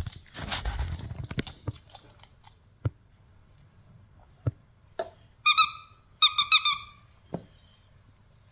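A dog's high-pitched squeaky whines, one short squeal and then a longer wavering run of squeals, with a few light knocks and a rustle before them.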